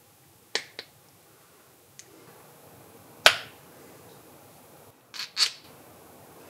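Hard parts and tools being handled during a hydraulic cylinder seal rebuild: a few sharp clicks and knocks. There is a quick pair near the start, a faint one, a single loudest knock in the middle, and another quick pair near the end.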